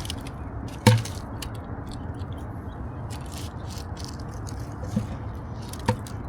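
Litter being handled during a river-bank cleanup: a sharp knock about a second in, two lighter knocks near the end, and light crackling and scraping over a steady background rush.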